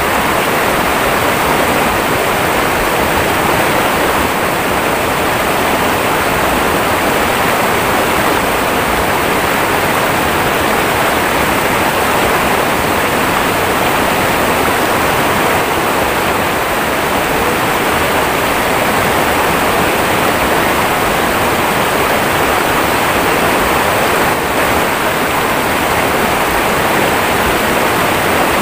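Shallow river rapids rushing over rocks: a loud, steady wash of water.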